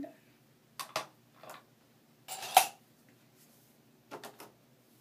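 Handling noises from small objects: a few short clicks and knocks, then a louder clatter lasting about half a second around the middle, and another quick cluster of clicks near the end.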